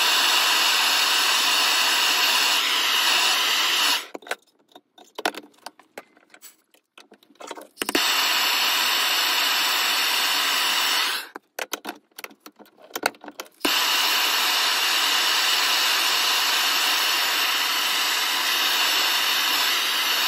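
Handheld gas blowtorch hissing steadily as it heats a steel Allen key red-hot so it can be bent. It runs in three long stretches, with gaps of a few seconds between them that hold sharp metallic clicks.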